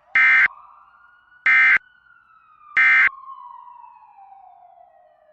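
Emergency Alert System end-of-message signal: three short bursts of warbling SAME data tones about 1.3 seconds apart, marking the close of the alert. Under them a faint siren wails, rising and then slowly falling in pitch.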